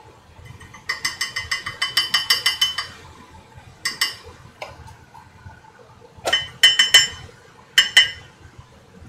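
Tableware clinking: a fast run of sharp, ringing clinks, about ten a second for two seconds, then a few shorter clusters of clinks.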